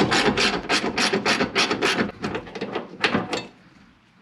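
Ratchet wrench clicking rapidly, about six or seven clicks a second, while door hinge bolts are loosened; the clicking thins out and stops near the end.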